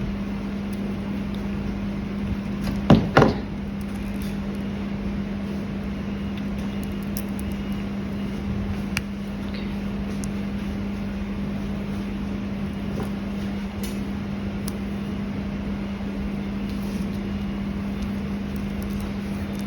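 A steady low hum under faint handling noise, with a short clatter of knocks about three seconds in.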